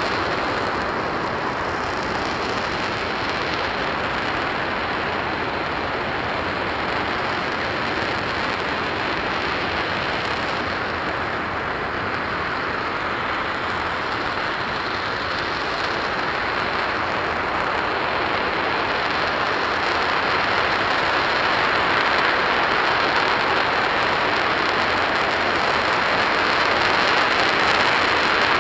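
RS-25 liquid-hydrogen/liquid-oxygen rocket engine firing at full run on a test stand: a steady, continuous rushing noise with no pitch to it, growing a little louder in the last third.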